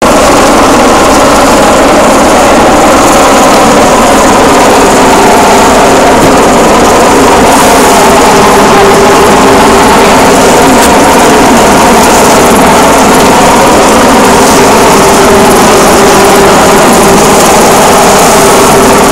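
Loud, steady engine drone with a slowly wavering pitch, unbroken throughout.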